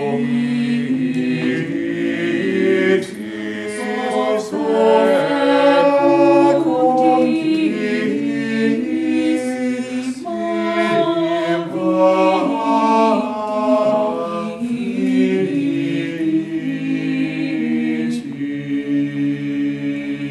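Small mixed-voice a cappella ensemble of four singers performing fifteenth-century English polyphony, a hymn to the Virgin Mary, with the voices moving in sustained overlapping lines. Near the end they settle onto a long held final chord.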